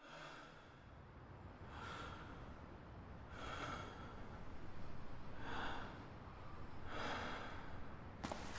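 A person breathing heavily, about five loud breaths spaced roughly a second and a half apart, over a steady low rumble, with a couple of sharp clicks near the end.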